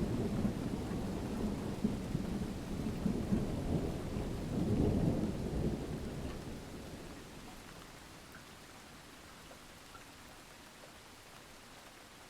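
Thunderstorm: rolling thunder rumbling over steady rain. The rumble swells about five seconds in, then dies away over the next few seconds, leaving only the faint hiss of rain.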